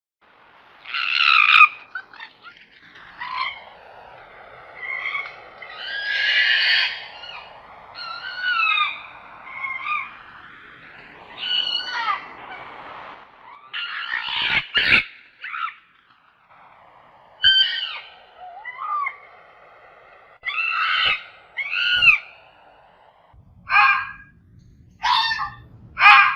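A fox calling over and over with short, high yelps and screams, some sliding in pitch, every second or two. Near the end the calls come as quick sharp barks about one a second.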